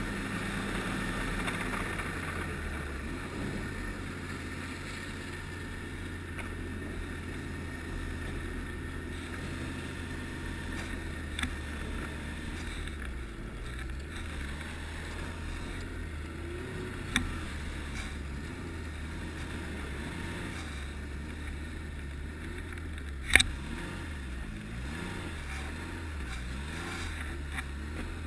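Ski-Doo Renegade 1200 snowmobile's four-stroke three-cylinder engine running steadily at low speed. Three sharp knocks cut in, the loudest about 23 seconds in.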